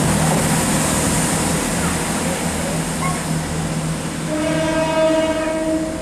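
Class 166 Turbo diesel multiple unit approaching out of a tunnel, its engine and wheels making a steady rumble. A single-pitch horn blast of nearly two seconds sounds near the end.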